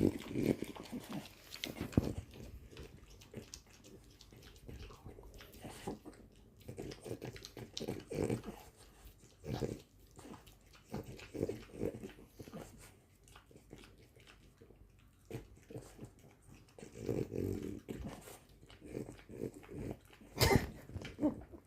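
French bulldog licking and chewing at a dish, in short irregular bursts of wet mouth noises and low grunts.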